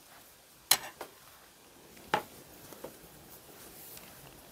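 Two sharp clicks about a second and a half apart, with a few fainter ticks, from a Tunisian crochet hook and yarn being handled while stitches are worked.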